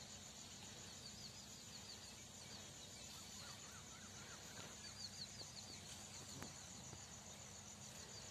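Faint field ambience: a steady, finely pulsing high insect trill, with short runs of quick bird chirps at a few moments.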